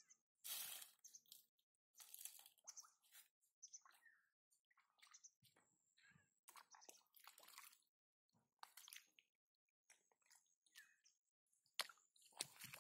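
Faint, irregular squelches and splashes of bare feet wading through shallow mud and water, then hands sloshing in the muddy water, with a sharp click near the end.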